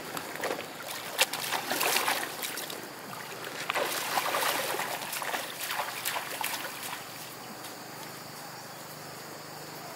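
A person wading through shallow floodwater, legs and a wet sack splashing and sloshing in quick uneven strokes; after about seven seconds the splashing stops and only a steady, quieter background with a faint high insect drone remains.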